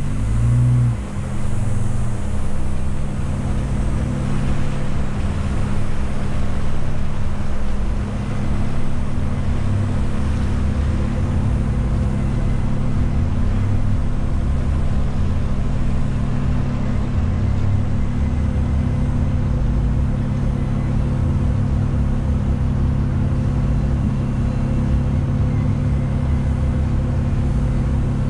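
Jeep engine running steadily at low trail speed, heard from the hood, with an uneven low rumble underneath.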